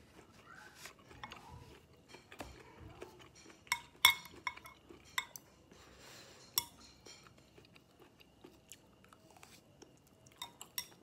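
Close-miked chewing of braised pig intestine, broken by several sharp clinks of chopsticks against a ceramic plate, each ringing briefly; the loudest comes about four seconds in and two more come near the end.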